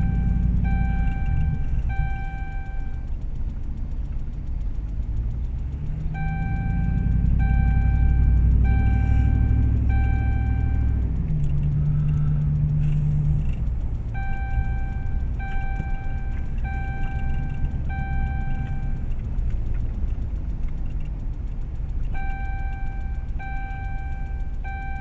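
Vehicle engine and road noise heard inside the cab, swelling as the vehicle speeds up about six seconds in. Over it, an electronic beep repeats about once a second in runs of four or five, with short pauses between the runs.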